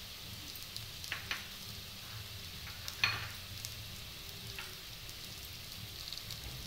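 Onion, carrot and sweet corn frying in oil in a pan with a steady sizzle, stirred with a spoon that knocks against the pan a few times, the sharpest knock about three seconds in.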